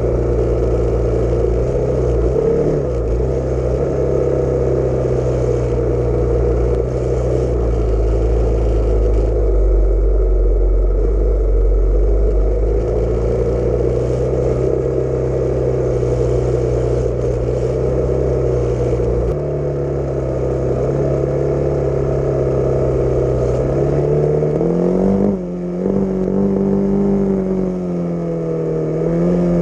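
Honda XR600's single-cylinder four-stroke engine running on the move, heard close up from the bike. Its pitch steps up about two-thirds of the way through. Near the end it dips briefly, then rises and falls with the throttle.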